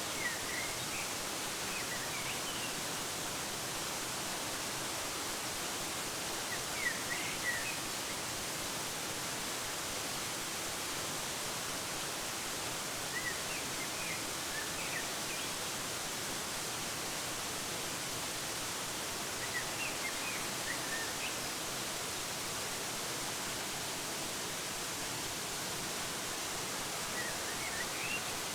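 Steady rushing hiss of a waterfall, with short bursts of bird chirping that come about every six or seven seconds.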